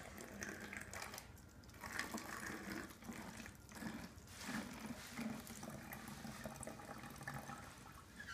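Vinegar being poured from a plastic cup into an empty plastic bottle: a faint, uneven trickle of liquid that comes and goes in surges.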